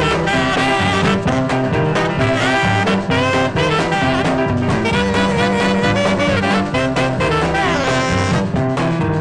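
Background music: a swing-jazz tune with brass instruments and a steady beat.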